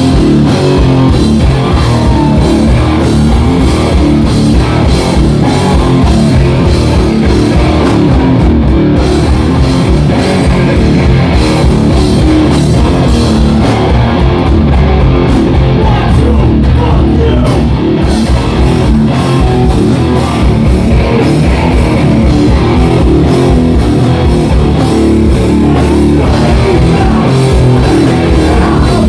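Hardcore punk band playing live and loud: distorted electric guitars and bass over a drum kit.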